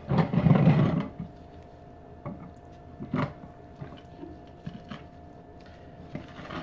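Raw whole chicken being lifted and lowered onto a beer can in a wire beer-can-chicken rack on a wooden cutting board: a loud handling noise for about the first second, then a few light clicks and knocks of the wire rack against the board.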